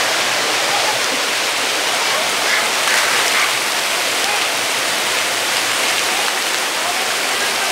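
Steady rush of falling water, loud and unbroken, with faint voices in the background.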